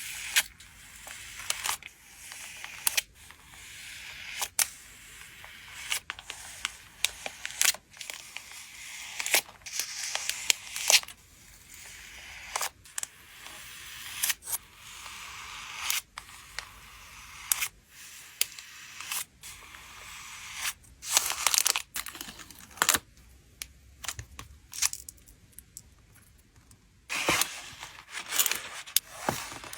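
Photocard packing by hand: plastic sleeves and wrapping crinkling, with many sharp clicks and taps and short bursts of tearing, as of tape pulled off.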